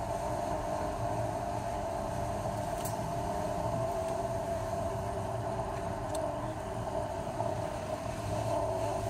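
Steady drone of a car driving slowly, heard inside the cabin: engine and tyre noise with a constant mid-pitched hum. Two faint ticks come about three and six seconds in.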